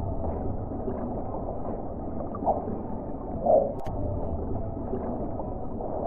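Muffled, murky sound effect, dull and watery like sound heard underwater, with two short, louder call-like blips near the middle.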